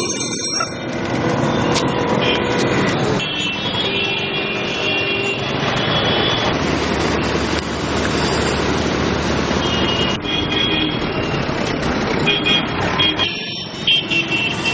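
Busy city street traffic: motorbike and auto-rickshaw engines running amid a dense street din, with vehicle horns beeping several times.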